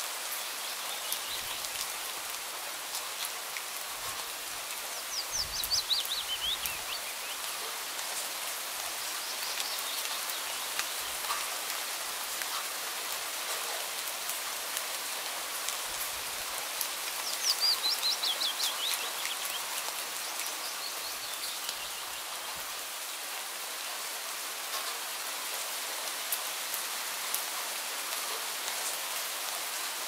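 Steady rain falling, with a bird chirping over it: a quick series of high notes falling in pitch, about five seconds in and again about twelve seconds later.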